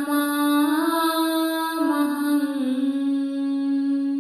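A woman's voice chanting a Pali devotional verse, holding one long sung note with small ornaments about a second in and a slight fall about halfway through, then easing off near the end.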